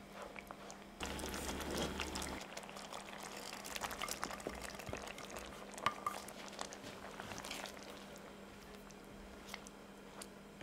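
Coconut-milk curry sauce bubbling at a simmer in a stainless steel pan while it is stirred with a silicone spatula. About six seconds in there is one sharp knock as chopped red bell pepper is tipped into the sauce.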